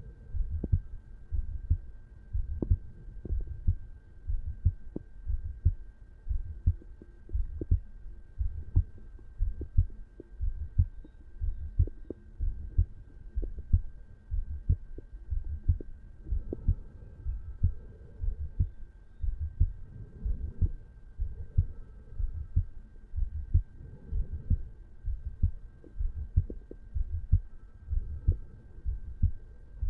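A resting adult human heartbeat heard at the mitral valve area: a steady 'lub-dub' rhythm of paired low thumps at roughly one beat a second. A faint steady hum lies under it.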